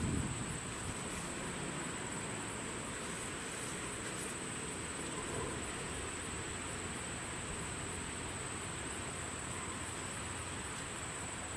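Steady outdoor background hiss with a continuous high-pitched insect trill, like crickets.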